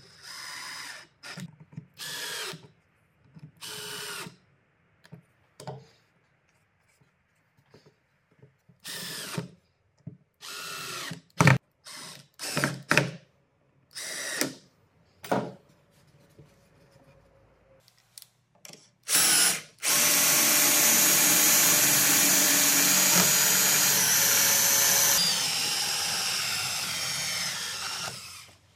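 Power drill spinning a metal rod held in two pillow-block bearings: a string of short trigger pulls, each rising and falling in pitch, then a steady run of about eight seconds that eases off near the end.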